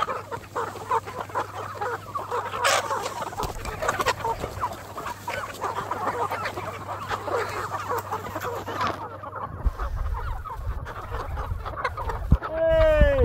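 A large flock of free-range chickens clucking all together, many overlapping calls at once. Near the end one loud, drawn-out call falls in pitch over it, and a low rumble comes in from about ten seconds in.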